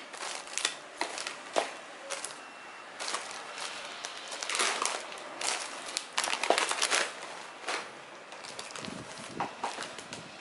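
Plastic grocery packaging, instant-noodle packets and cellophane-wrapped crackers, crinkling and rustling as hands pick up and rearrange them, in irregular crackly bursts that are busiest about halfway through.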